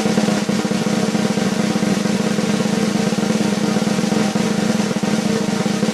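Snare drum roll: a continuous, fast, even roll of strokes held at a steady level.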